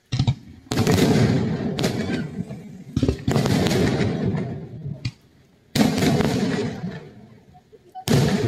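Aerial fireworks bursting: a string of about six sharp booms, each trailing a rumbling crackle that fades over a second or two, with a short lull about five seconds in.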